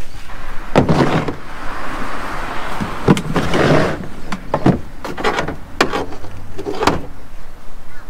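Hollow plastic knocks and scraping as a Kickass dual battery box is shifted and set down on a ute tub's ribbed plastic bed liner. There are several separate clunks, with sliding scrapes between them in the first half.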